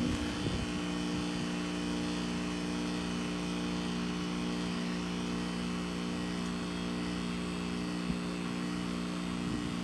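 Heat pump outdoor unit running with a steady, even compressor hum during a defrost cycle. A faint tick comes about eight seconds in.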